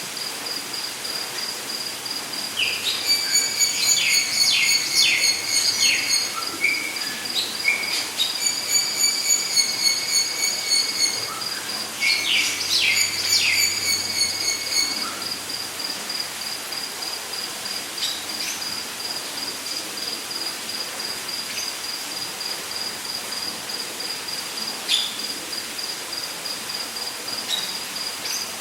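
Rainforest ambience: an insect, likely a cricket, trills steadily in a rapid pulsed high note throughout. Over it a bird calls in three bouts of quick, sweeping notes in the first half.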